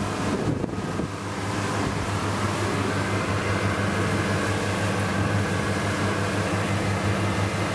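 A motorboat's engine running steadily with a low hum, under wind and water rush.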